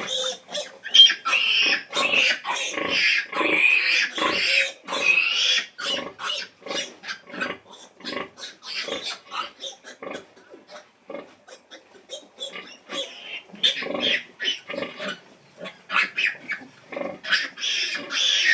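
A sow making repeated short grunts to call her piglets to nurse. The grunts come thick and fast for the first several seconds, thin out in the middle, then pick up again near the end.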